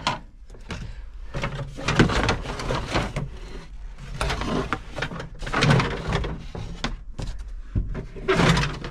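Hard plastic interior trim panels being handled and shifted about, knocking, rubbing and scraping against each other and the floor in an irregular clatter.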